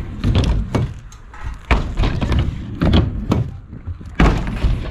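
Inline skate wheels rolling over a skatepark ramp with a run of sharp knocks and thuds as the skater pumps the quarter pipe. A heavy thud about four seconds in comes as he lands out of a spinning air.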